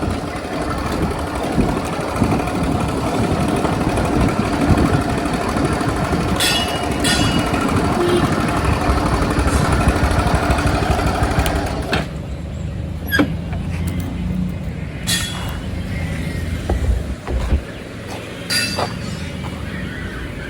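Motorcycle riding through road traffic, with steady engine and road noise. About twelve seconds in it drops quieter, and a few short sharp sounds stand out.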